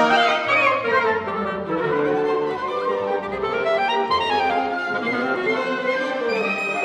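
Orchestra playing classical music, with bowed violins and other strings to the fore. The music eases to a somewhat softer passage after the first second.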